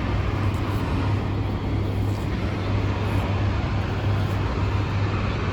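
Steady outdoor background noise: an even low rumble with a hiss above it, like distant road traffic, with no distinct events.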